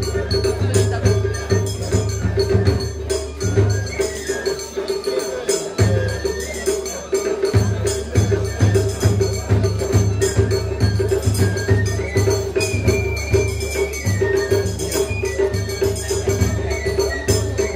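Japanese festival music (matsuri bayashi): steady drum beats under a high flute melody of falling phrases, with jingling, clacking percussion. The drums drop out briefly about six seconds in.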